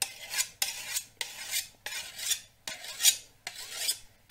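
A hand-held sharpening stone scraped along the edge of a steel sickle blade to hone it, in about seven quick even strokes roughly one every half-second or so.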